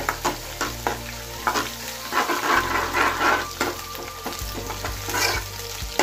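Garlic, cumin and dried fenugreek leaves sizzling in hot oil in a non-stick kadai, stirred with a perforated steel spatula that scrapes the pan in quick, irregular strokes.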